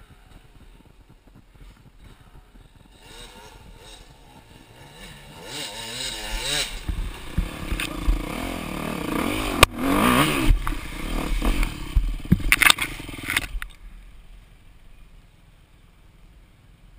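Dirt bike engine revving close by, its pitch rising and falling. It builds from about three seconds in, with a couple of sharp knocks and scrapes in the middle, then cuts off suddenly near the end.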